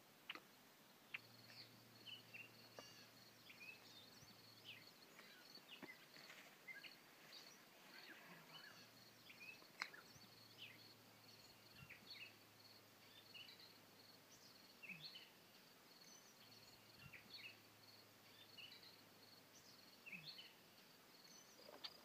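Faint outdoor ambience: scattered short bird chirps over a steady high-pitched insect drone.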